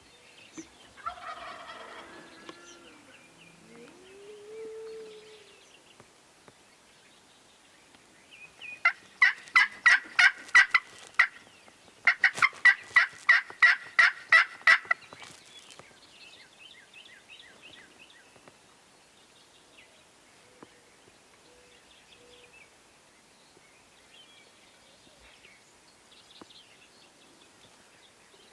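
Wild turkey calling: two loud runs of evenly spaced yelp-like notes, about four a second, each run lasting two to three seconds with a short break between. Fainter chirping calls follow.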